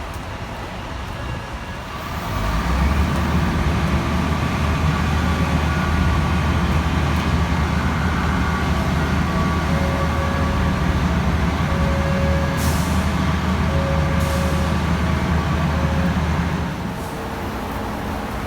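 A heavy truck's diesel engine running loud and steady close by. It comes up about two seconds in and drops away about two seconds before the end, with a short hiss of air partway through.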